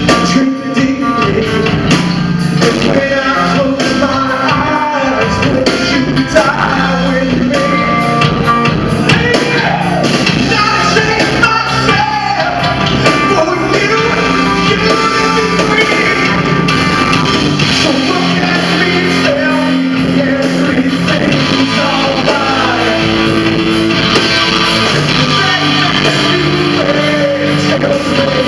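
Live rock band playing loudly in a hall, with guitar and vocals.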